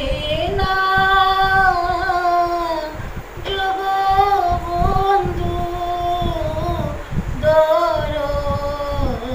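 A woman singing a devotional prayer to Jagannath into a microphone, drawing out long held notes in three phrases that slide up and down between pitches.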